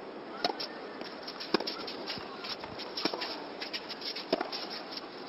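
Tennis ball being hit back and forth in a doubles rally: sharp racket strikes and ball bounces, roughly one a second, over a low, steady crowd hum.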